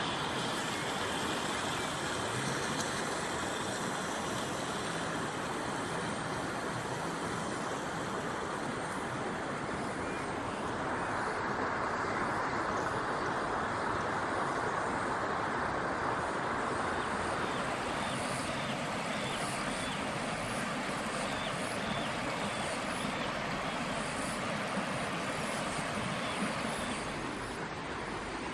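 Steady rush of a river flowing over rocks. In the second half, faint high chirps repeat about once a second.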